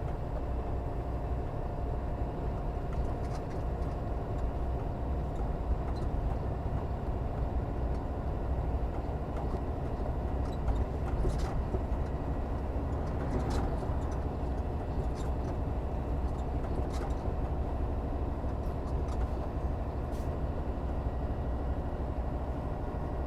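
Semi truck's diesel engine running steadily under light load in seventh gear, with road noise and a few brief faint ticks.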